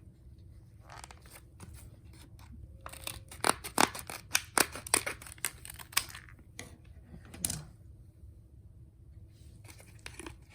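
Stiff plastic retail packaging being cut and torn open: a quick run of sharp snaps and crackles starting about three seconds in and lasting a few seconds, with quieter handling rustle around it.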